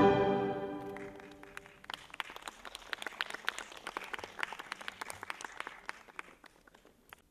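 Recorded orchestral string music dies away on its last held chord. About two seconds in, light audience applause begins, separate claps easy to pick out, and it thins and fades out near the end.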